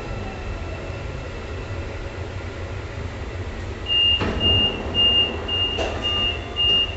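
Driverless metro train running with a steady low rumble as it draws along a station platform; from about four seconds in, a high electronic warning beep repeats about twice a second, six times, with two knocks among the beeps.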